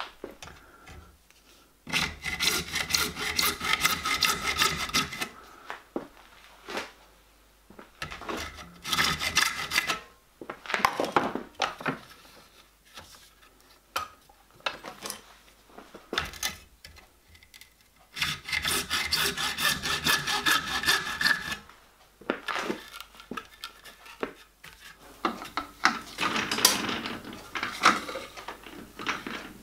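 Hacksaw cutting through a thick-walled plastic pipe clamped in a vice, in several runs of quick back-and-forth strokes with pauses between them.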